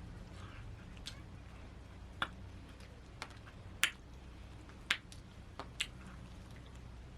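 A handful of short, sharp clicks and taps at irregular intervals, about seven over several seconds, the loudest about four seconds in, over a faint steady low hum.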